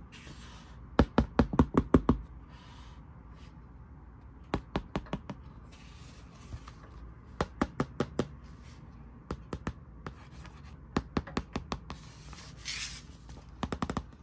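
Fingernails tapping on the hard cardboard cover of a board book in quick runs of about four to seven taps, repeated six times, with soft brushing of the hand over the cover between the runs.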